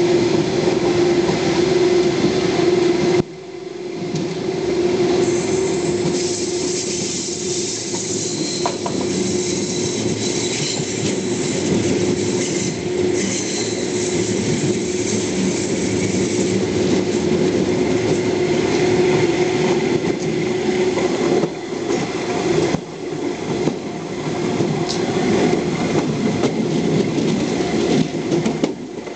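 Electric multiple-unit commuter train running on the track, heard from inside the rear car: a steady hum with clickety-clack over the rail joints. From about five seconds in to about sixteen seconds in, the wheels squeal high-pitched on the curve.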